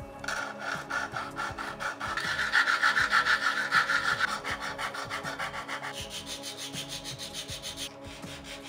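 White styrene plastic parts rubbed quickly back and forth on a nail file, a fast scraping rasp of about six strokes a second, sanding uneven edges flat. The strokes are loudest in the middle and turn lighter about six seconds in.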